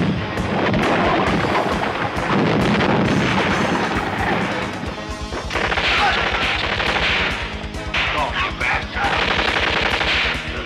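Action-film soundtrack: an explosion goes off sharply at the start and rumbles on for several seconds, then rapid machine-gun fire takes over, with music underneath.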